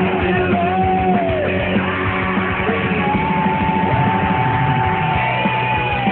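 Punk rock band playing with electric guitar, bass and drums, no sung lyrics, with long sliding and held melody notes on top, one held for about three seconds from around the middle.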